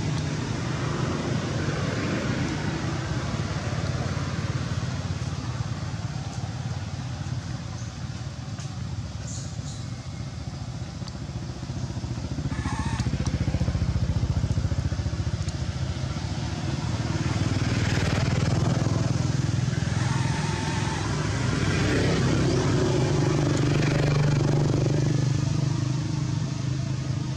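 Steady hum of a motor vehicle engine running, with no break, growing louder about halfway through.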